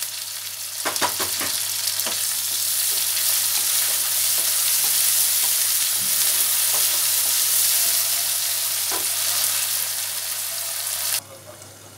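Chopped onion and tomato sizzling in hot oil in a nonstick wok, stirred with a wooden spatula that gives a few knocks and scrapes against the pan. The sizzling cuts off suddenly near the end.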